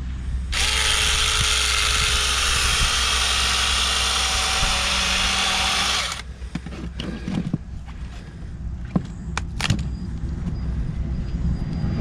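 Small chainsaw running at speed, cutting into a pumpkin, starting sharply about half a second in and stopping abruptly about five and a half seconds later. After it stops come a few light clicks and knocks.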